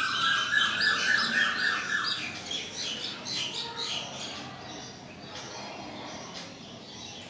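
Birds chirping and calling, busiest over the first four seconds and then fading, with a steady high tone during the first two seconds.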